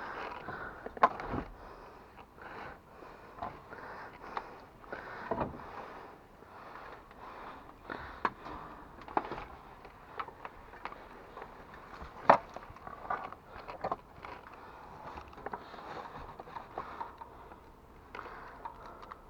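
Scattered knocks, clicks and scraping of hands working with tools and equipment, with two louder sharp knocks about a second in and about twelve seconds in.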